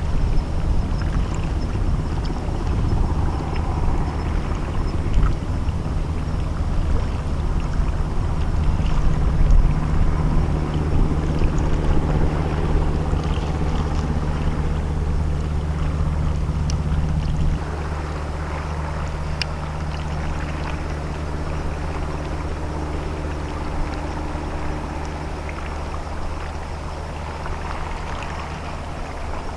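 A ship's diesel engines running with a steady low hum as the vessel comes into port. The hum drops slightly in level a little over halfway through.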